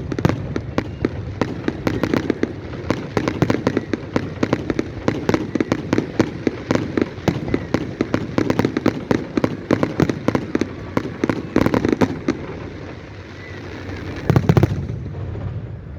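New year fireworks display: a dense, rapid crackle of many small bursts for about twelve seconds, easing off briefly, then a louder cluster of bangs near the end.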